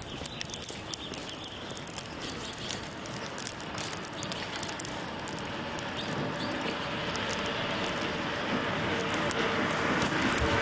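Light patter and ticking at first, then a car approaching, its engine and tyres growing steadily louder through the second half.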